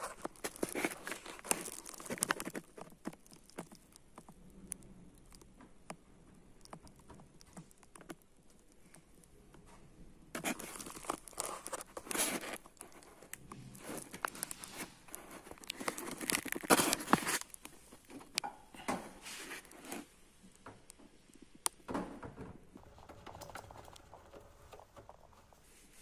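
Irregular clicks, taps and rustling from hands handling the washing machine's plastic housing and parts close to the microphone, in bursts near the start, from about ten to thirteen seconds in, and loudest around sixteen to seventeen seconds in.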